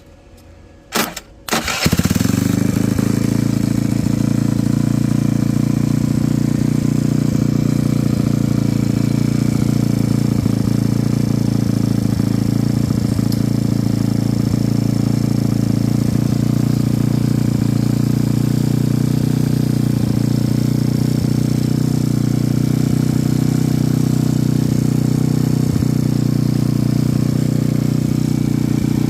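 A vehicle engine cranks briefly and starts about two seconds in, then idles steadily.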